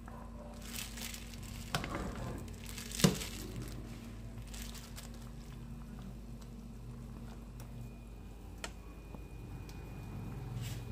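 A soup spoon stirring a pot of ridge gourd and chicken-ball soup, with a few light knocks of the spoon against the stainless-steel pot, the loudest about three seconds in, over a steady low hum.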